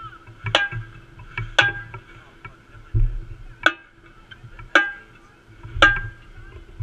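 Sharp ticks, about one a second with one beat skipped, each with a short ringing tone, over a low rumble.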